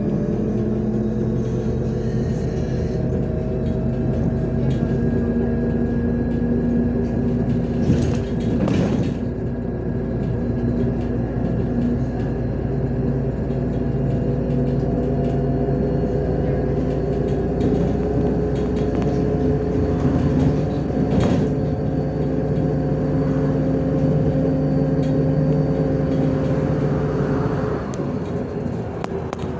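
MAZ-105 city bus under way, heard from inside: a steady diesel engine drone with road noise, and a couple of sharp knocks and rattles from the body about eight and twenty-one seconds in. The engine note drops near the end.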